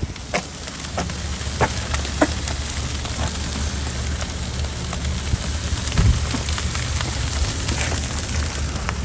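Charcoal and wood fire in a grill crackling: scattered sharp pops over a steady hiss, with a low steady rumble underneath.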